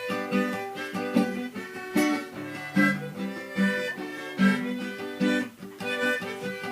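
Instrumental music between sung verses of a forró song: plucked guitar-like chords keep a steady rhythm under a melody line, with no singing.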